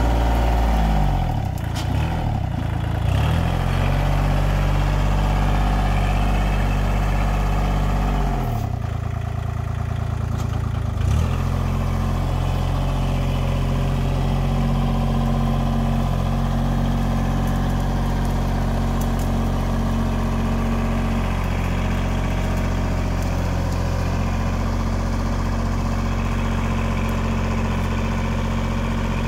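Kubota compact tractor's diesel engine running steadily while its front loader pushes into brush. The engine note sags and recovers twice, about a second in and again around nine seconds in, as it works under load.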